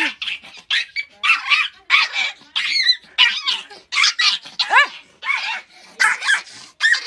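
Pomeranian puppy yapping, a quick string of short, high-pitched barks, some sliding up and down in pitch.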